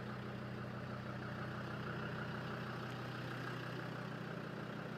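Land Rover Defender Td5's five-cylinder turbo-diesel engine idling steadily.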